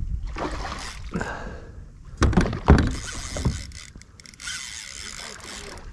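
A fishing reel whirring in spells as the angler cranks and the drag gives line to a big fish on light 8-pound braid, with two loud thumps about two and a half seconds in.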